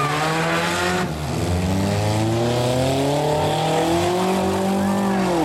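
Engines of several compact demolition derby cars revving hard together, their pitch rising and falling as the drivers work the throttle, with a drop in pitch near the end.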